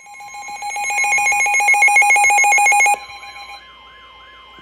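Midland WR400 weather radio sounding its tornado-warning alert. A loud, rapid electronic warble rises in level, then about three seconds in it drops to a quieter steady tone with a wailing siren sweep repeating underneath.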